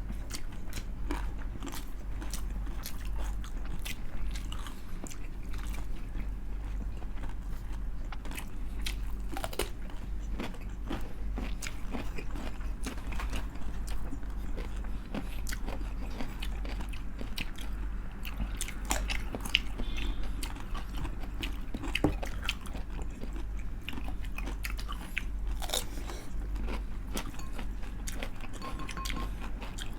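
Close-up crunching and chewing of crispy fried chicken skin: many sharp, irregular crunches. A steady low hum runs underneath.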